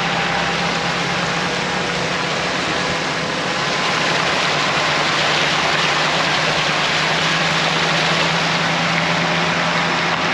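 Steady loud rushing noise of heavy rain and wind, over the low steady hum of an idling car engine.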